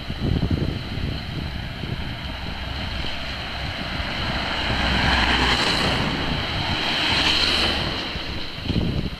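Wind buffeting the microphone, over a rushing noise that swells about halfway through, peaks again a little later, then fades.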